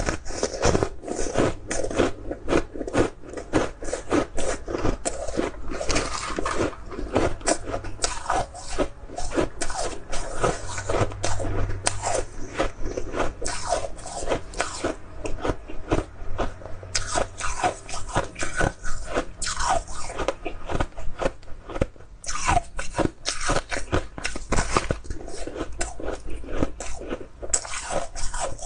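Close-miked crunching and chewing of frozen purple flavoured shaved ice: many quick, irregular crunches as the packed ice is bitten off the block and chewed.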